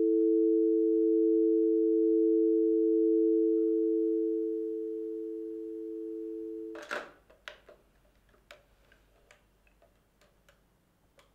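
Steady telephone dial tone from the handset of a rotary telephone, left after the caller has hung up. It grows quieter as the handset is lowered from the ear, then cuts off with a clunk about seven seconds in as the handset is put back on the cradle. Faint scattered clicks follow.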